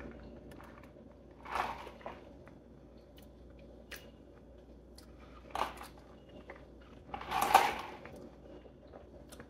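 Iced coffee being sipped through a straw and the cup handled: three short noisy sounds, about one and a half, five and a half and seven and a half seconds in, with faint ticks between.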